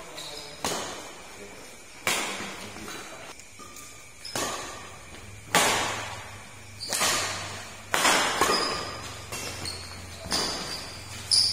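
Badminton rackets striking the shuttlecock in a rally, sharp hits roughly once a second, each ringing briefly in the hall, with a few short high squeaks near the end.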